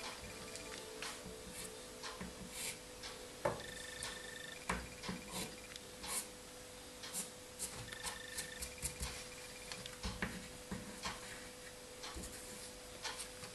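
Dry pastel being worked on paper by hand: soft, irregular rubbing and scratching strokes, with a faint steady hum underneath.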